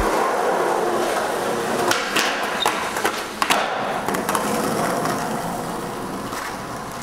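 Skateboard wheels rolling on asphalt, a steady rolling noise that slowly fades, with a few sharp clacks from the board about two and three and a half seconds in.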